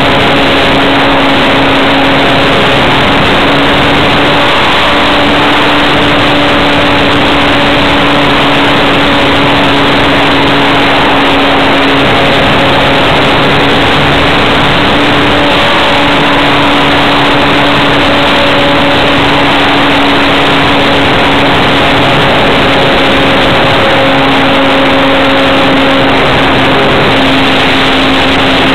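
Electric RC model airplane's motor and propeller humming steadily in flight, under a loud rush of airflow over the plane-mounted camera's microphone. The propeller tone shifts slightly in pitch a few times as the throttle changes.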